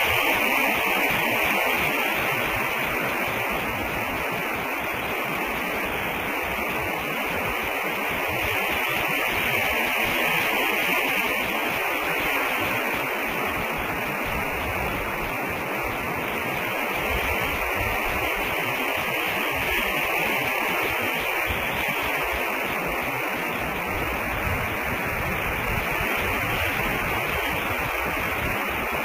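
Steady static-like hiss that swells and eases slowly, with no eagle calls or other distinct sounds.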